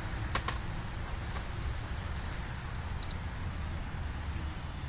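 A few light clicks of a hand tool on a leaf blower's intake-manifold bolt as it is loosened, the sharpest about half a second in. Under them is a steady low background hum with a couple of faint bird chirps.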